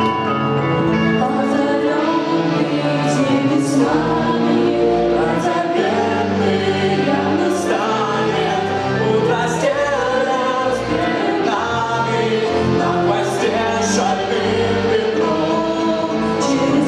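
Live amplified performance of a song: electric guitar and electronic keyboard playing with singing over them.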